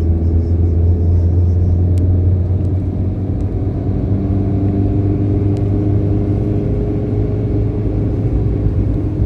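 Steady low engine and road rumble of a moving vehicle, with a constant hum and no change in speed.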